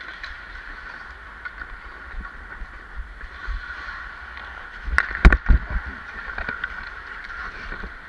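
Ice skates scraping and gliding on rink ice, close to the player, with a burst of several sharp knocks and clatter about five seconds in.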